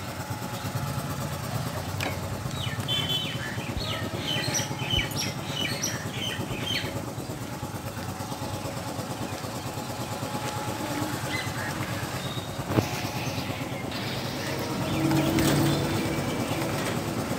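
A motor vehicle's engine running steadily in the background, swelling louder for a moment near the end. A run of short high-pitched chirps comes a few seconds in, and a single sharp click near the middle.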